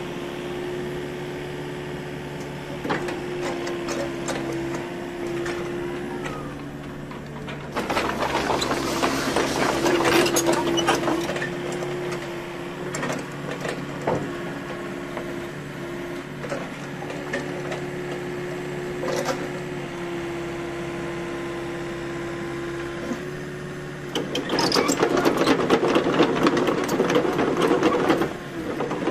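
Komatsu PC40MR-2 mini excavator's diesel engine running with a steady hydraulic whine as the boom and blade work the machine up and down. Louder rattling clatter comes about eight seconds in for a few seconds, and again over the last five seconds.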